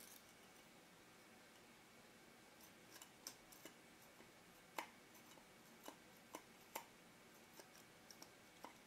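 Faint, sharp small clicks and ticks of metal lens parts being handled as the aperture ring and its fork are fitted onto a Nikkor-Q Auto 135mm f/2.8 lens. The first few seconds are near silent; then about fifteen irregular clicks follow, the loudest near the middle.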